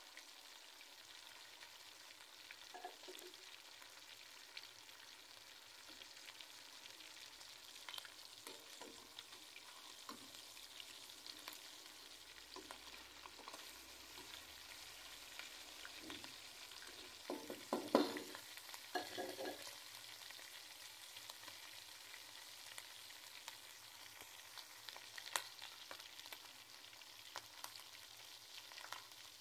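Marinated chicken pieces frying in hot oil in a metal pan, a steady sizzle. A slotted spoon scrapes and knocks against the pan now and then, loudest in a cluster about two-thirds of the way through.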